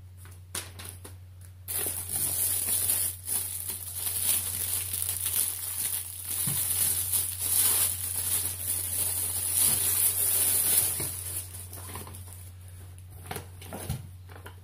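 Clear plastic packaging crinkling and rustling as a nylon bow case is pulled out of its plastic bag. The crinkling starts about two seconds in and dies down after about eleven seconds, leaving fainter handling noises and a few light knocks.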